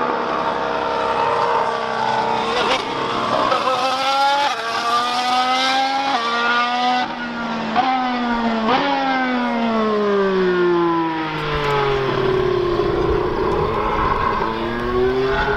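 Lotus Formula One car's engine accelerating hard through a quick run of upshifts, each gear change a brief break with the pitch dropping back before climbing again. Then the engine note falls away for a few seconds and rises again near the end.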